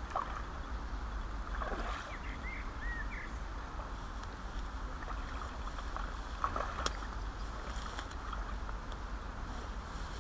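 Steady rushing of river water, with a few short high chirps about two to three seconds in and a brief louder disturbance about two-thirds of the way through.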